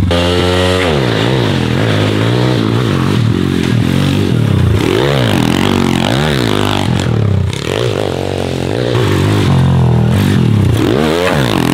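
MRF 140 TTR pit bike's 140 cc four-stroke single-cylinder engine being ridden hard. It revs high at first and drops, then climbs and falls in pitch over and over as the throttle is opened and closed.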